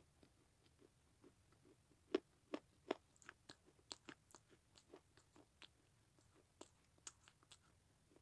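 Baked clay being chewed: a run of short, irregular crunches, mostly faint, with a few sharper, louder crunches about two to three seconds in.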